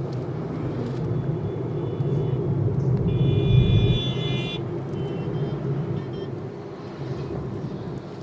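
Car travelling on the road, a steady low rumble of engine and tyres, with a high, steady pitched tone sounding for about a second and a half in the middle.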